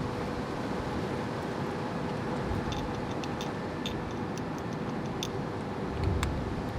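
Steady outdoor background noise with a faint steady hum, light irregular ticks and clicks through the second half, and a low thump near the end.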